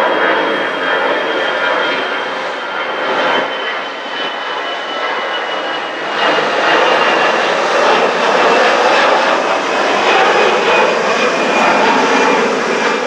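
Jet engines of an Airbus A320-family twin-engine airliner climbing out after takeoff: a steady roar with a thin high whine that slowly falls in pitch. It grows louder about six seconds in.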